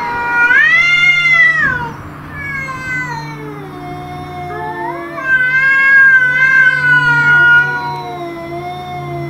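Domestic cats caterwauling in a territorial standoff. A loud drawn-out yowl rises and falls, followed by quieter wavering moans. A second long, loud yowl comes about five seconds in and sinks into low moaning near the end.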